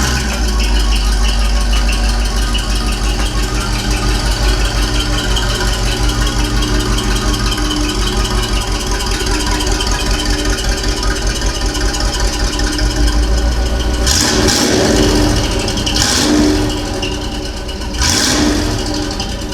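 Box Chevy running on its newly installed exhaust, a steady deep engine sound, with three broad swells of noise about two seconds apart near the end.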